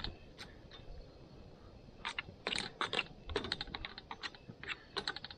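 Rapid, irregular metallic clicks and taps of a utensil working in an aluminium mess tin of rice cooking over a campfire, densest in the second half.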